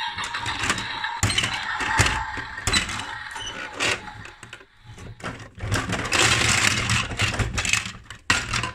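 Plastic Lego Duplo bricks clattering and knocking as they tumble out of a toy garbage truck's tipping bin, over a steady mechanical whirr from the toy truck. The clatter is heaviest in a dense run a little past the middle, with a few sharp knocks either side.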